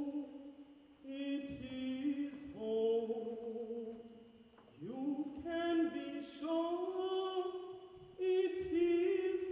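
Voices singing a cappella, a choir holding long notes in several phrases with brief breaks between them.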